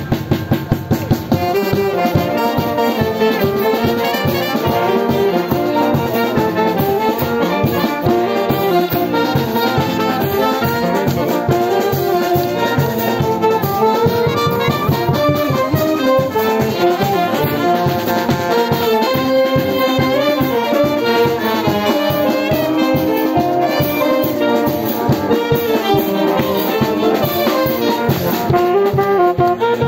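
Brass band playing a tune: trumpets, trombones, a tuba and a saxophone over a snare drum and bass drum keeping an even beat.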